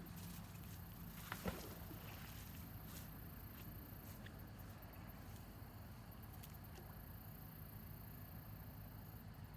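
Quiet outdoor background with a steady low hum, broken about a second and a half in by a short knock and rustle, then a few faint ticks.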